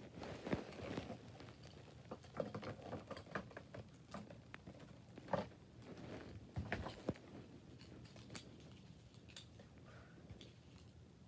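Faint scattered taps, clicks and rustling of things being handled close to a phone's microphone, thinning out after about eight seconds.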